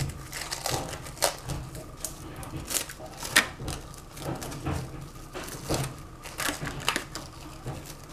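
Plastic cling wrap crinkling and crackling in irregular small ticks as it is stretched over a glass cup and pressed down around the rim by hand.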